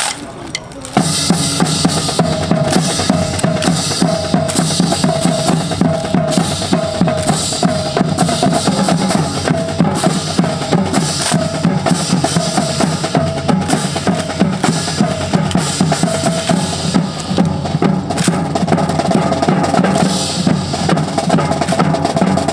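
Drum-led music with bass drum and snare starts about a second in and plays steadily, with a repeating pitched figure over the beat.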